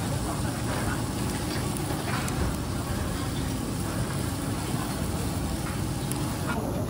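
Beef cubes and garlic sizzling steadily on a hot stone grill plate over a steady low rumble, with a few light clicks of metal tongs.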